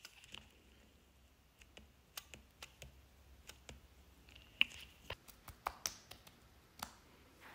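Light, irregular taps and clicks of fingertips and long painted fingernails, first on the diary page and then patting the face, sometimes several in quick succession.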